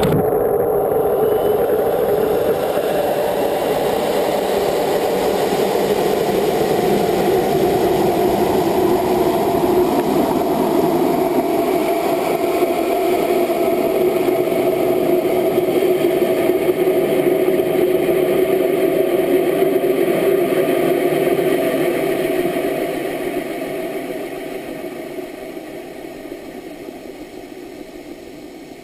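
Solid-fuel rocket motor of the GoFast amateur rocket igniting with a sudden blast, then burning with a loud, steady rushing noise as the rocket climbs, heard from a camera mounted on the rocket's side. The sound fades gradually over the last six seconds or so.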